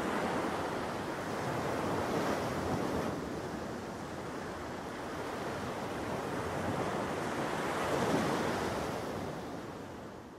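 Water washing and lapping at the surface right at the microphone, with some wind noise; it swells and ebbs every few seconds and fades out near the end.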